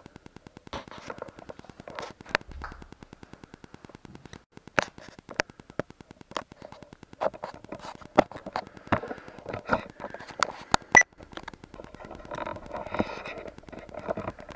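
Electrical interference on a camcorder's audio: a rapid, even buzz of clicks for the first few seconds, then scattered sharp clicks and pops, with a patch of muffled noise near the end.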